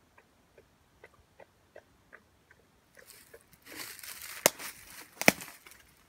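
Faint ticks about two or three a second, then from about three seconds in a rustling of tent fabric being pushed aside and handled, with two sharp clicks near the end.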